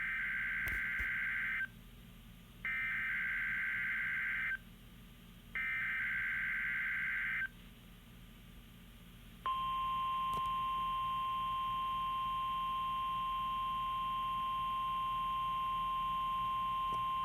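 NOAA Weather Radio Required Weekly Test tones: three bursts of SAME (Specific Area Message Encoding) digital header data, each just under two seconds long and about a second apart. About two seconds later the steady single-pitch 1050 Hz tone alert comes on and holds.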